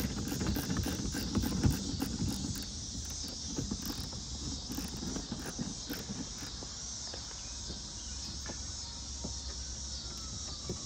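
A screwdriver clicking and scraping as it works a screw loose in a plastic wheel-well liner. The screw is held with threadlocker. The irregular clicks are densest in the first few seconds, with one sharper click near the two-second mark, and then thin out. Under them runs a steady high buzz of insects.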